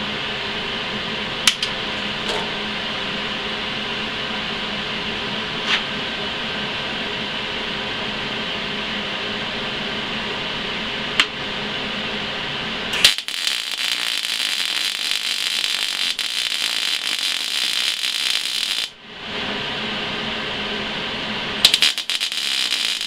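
A steady fan-like hum with a few light clicks. About 13 seconds in, an Eastwood MIG250 MIG welder strikes an arc on steel square tube and crackles and sizzles for about six seconds. After a short break, the arc starts crackling again near the end.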